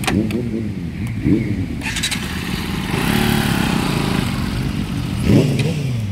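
Bajaj Pulsar 200 NS single-cylinder motorcycle engine running, with three short throttle blips that rise and fall in pitch, the biggest near the end, as the loaded bike is edged into position on soft ground.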